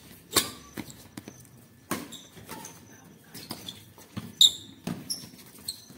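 Badminton rally: rackets hitting a shuttlecock in a string of sharp cracks, the loudest about four and a half seconds in. Short high shoe squeaks on the concrete court fall between the hits.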